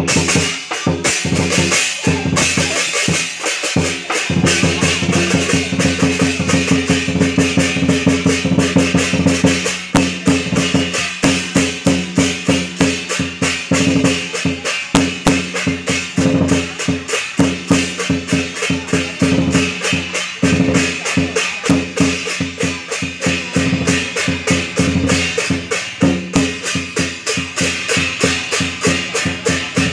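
Vietnamese lion dance percussion: a drum with accompanying percussion beating a fast, steady rhythm that carries on throughout.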